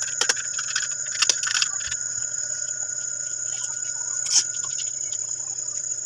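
Crickets chirring steadily, with a few sharp clicks and taps from wires and push-buttons being handled, the loudest a little past four seconds in.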